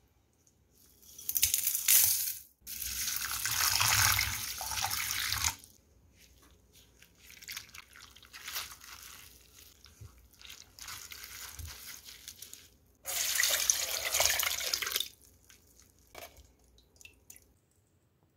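Soaked dried seaweed (miyeok) being washed by hand in a stainless steel bowl of water: water sloshing and splashing, with two longer stretches of water pouring, one about a second in and another near the end.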